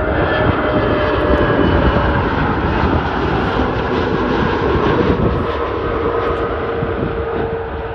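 Airbus A320neo airliner passing low overhead on final approach, its CFM LEAP-1A turbofans giving a loud, steady roar. A whine rides on top and drops slightly in pitch about five seconds in as the aircraft passes, and the roar eases a little near the end.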